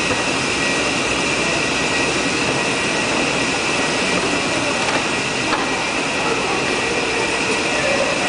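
Metro station escalator running: a steady mechanical rumble with a constant high whine, echoing in the concrete station.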